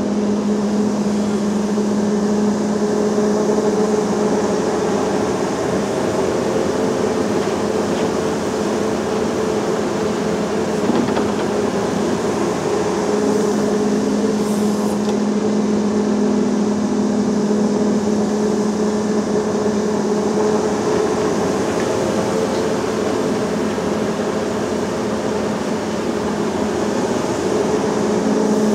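Volvo EC380E crawler excavator's diesel engine running with a steady drone as it swings and loads soil into a tipper truck, the tone easing and returning as the load changes. A single brief knock about eleven seconds in.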